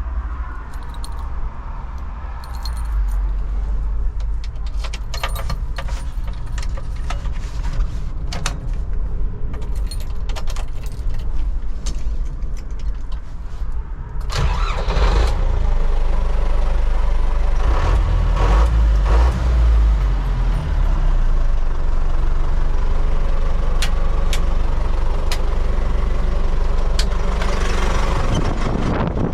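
MTZ-80 tractor's D-243 four-cylinder diesel running, with clattering and rattling from the machine; about halfway through it gets louder and fuller.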